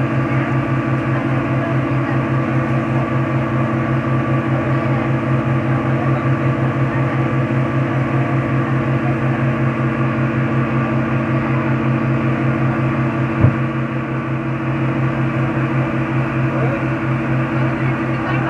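Motorboat engine running steadily, a low pulsing drone. A single thump sounds about thirteen seconds in.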